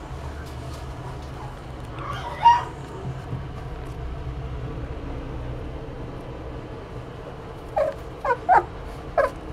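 Miniature dachshund puppy whimpering: one whine about two seconds in, then four short yips in quick succession near the end, over a low steady background hum.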